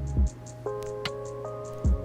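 Background music: held synth-like notes over a bass line, with a low drum beat about a quarter second in and again near the end.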